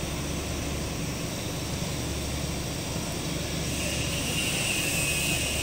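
Steady mechanical drone of a CNC fabric cutting table and its machinery running, with a constant low hum. About four seconds in, a higher-pitched whine joins.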